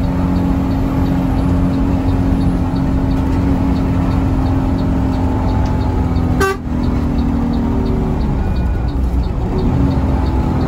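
Intercity bus interior on the move: the engine and road noise make a steady drone with a constant low pitch, broken once by a brief sharp click about six and a half seconds in.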